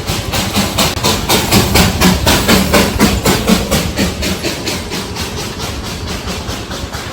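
Darjeeling Himalayan Railway toy train's steam locomotive chuffing in a quick, even beat of about four chuffs a second, growing fainter in the second half.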